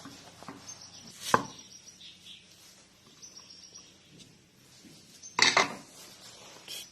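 Kitchen knife cutting a snow pear on a chopping board: one sharp knock about a second in, then a louder quick cluster of chops a little past five seconds.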